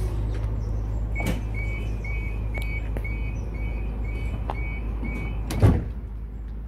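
Door-closing warning on an electric suburban passenger train: a rapid series of high beeps for about four seconds, then a loud thud near the end as the sliding doors shut. The train's equipment hums steadily underneath.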